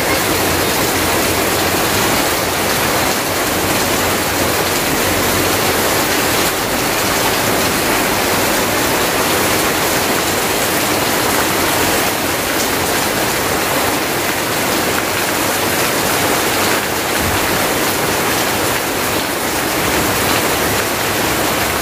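Heavy rain falling steadily and splashing on waterlogged ground, with a stream of runoff pouring off a roof edge.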